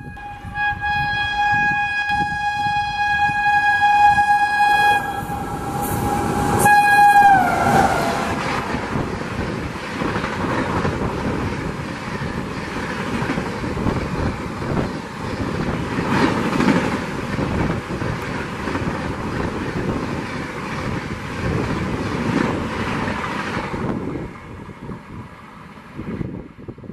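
Indian Railways electric locomotive sounding a long, steady horn as it approaches at speed, the pitch dropping sharply as it passes about seven seconds in. Then a long rake of passenger coaches rushes through with rail clatter, the noise falling away near the end.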